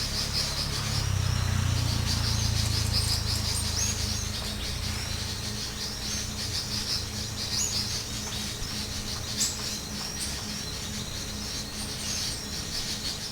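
Small birds chirping rapidly and continuously in high-pitched, overlapping calls, with a low rumble underneath that is strongest in the first few seconds.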